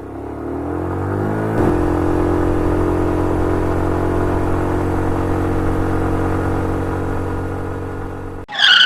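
A motor vehicle's engine revs up in pitch for about a second and a half, then runs steadily at that speed. It cuts off suddenly near the end.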